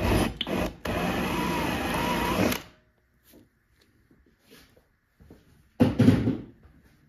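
Power drill running for about two seconds as a large twist bit bores through a jam jar's thin metal lid, then stops. A single heavy thud about six seconds in.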